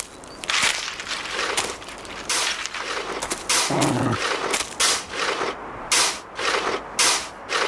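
A bear digging in earth with its claws: a run of short scraping strokes of soil being scratched up and thrown, about one or two a second, with a brief low thud a little before the middle.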